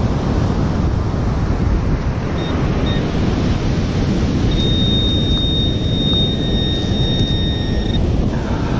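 Surf and wind on the microphone, with a Garrett handheld pinpointer sounding over it: two short high beeps about two and a half seconds in, then a steady high tone for about three and a half seconds as the probe closes in on a metal target in the sand.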